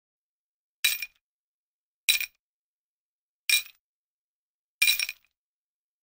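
Four short, bright clinks, evenly spaced about 1.3 seconds apart, each ringing briefly before it dies away.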